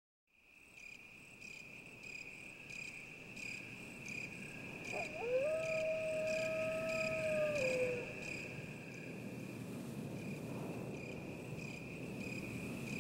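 Night ambience of crickets chirping steadily, fading in from silence, with a single long howl about five seconds in that holds one pitch for some two and a half seconds and then drops away. The howl is the loudest thing.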